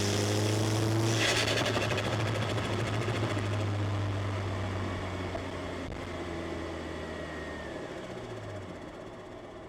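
Turbocharged Mini Cooper engine heard from inside the cabin: the climbing revs break off about a second in with a brief burst of turbo flutter as the throttle is lifted. The engine then drones along steadily and gradually quiets.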